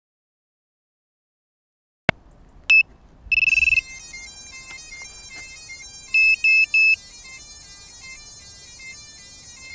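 A click about two seconds in, then a string of high electronic beeps and short stepped tones, including a longer tone and a quick triple beep: a 5-inch racing quadcopter's ESCs playing their startup tones through the motors after the battery is connected.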